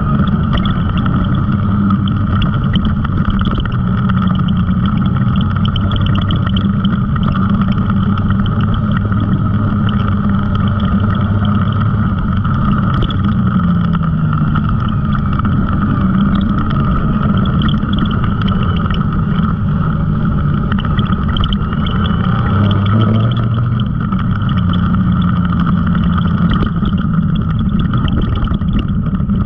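Side-by-side UTV engine running steadily as it drives along a dirt trail, its pitch drifting up and down a little with no pause.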